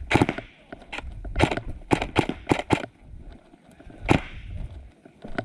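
Airsoft gun fired in single shots: several sharp cracks at irregular spacing, most of them bunched in the first three seconds, with one more a little after four seconds.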